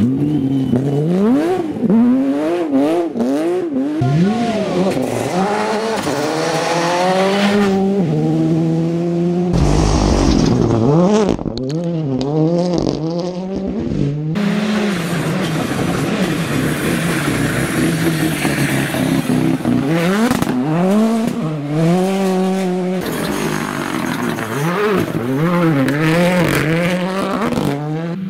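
Rally car engines at full throttle on a gravel stage, revving up through the gears in quick rising sweeps and dropping back on each shift and lift-off. Several passes follow one another, the first from a Porsche 911 rally car's flat-six as it slides through a corner.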